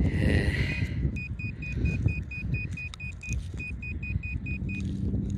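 Handheld GP Pointer pinpointer probe beeping rapidly, about five short high beeps a second, as it sits on a metal target in a plug of soil; the beeps stop just before the end. Low rustling of soil and stubble runs underneath, and a low steady hum comes in near the end.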